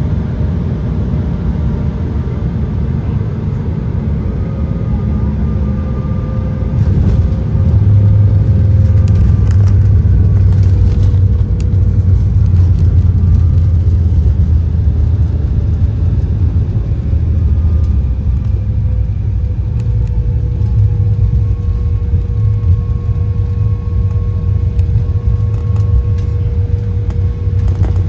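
Cabin noise of an Embraer 175 rolling out on the runway after landing: a steady low rumble from its CF34 turbofans and the rolling wheels, with a faint engine whine. The rumble grows louder about seven seconds in, with some rattling for a few seconds.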